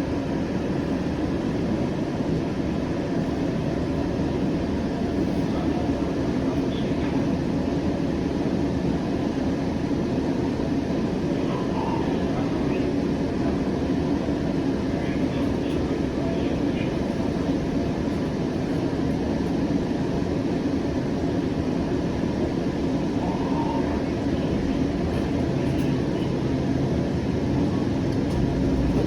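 Siemens S700 light rail car running, heard from inside the car: a steady rumble and hum of the wheels and traction equipment on the track.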